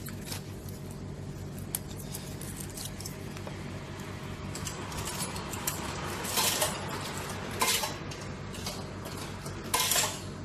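Coins clinking as they are fed into a retro soba and udon vending machine, a few sharp clinks near the middle and end, over the machines' steady hum.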